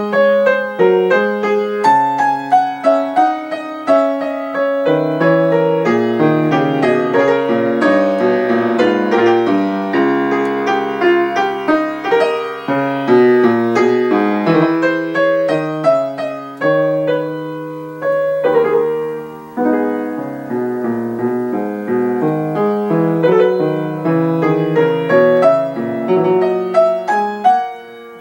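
Grand piano played solo, a continuous stream of classical-style notes in both hands, with a short drop in loudness near the end.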